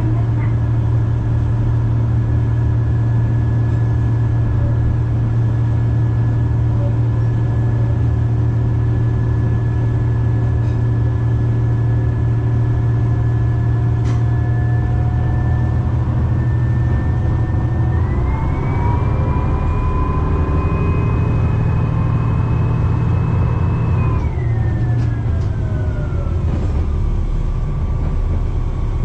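Kishu Railway KR301 diesel railcar's engine running as the car travels, a strong low hum with a steady whine above it, heard from inside the cab. About eighteen seconds in the engine picks up and the whine rises in pitch, holds for several seconds, then falls away as the engine drops back.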